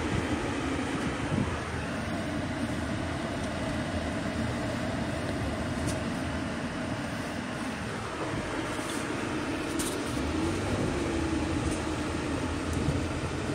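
Car engine and road noise heard from inside the cabin while driving, a steady hum whose engine note dips and then rises a little partway through.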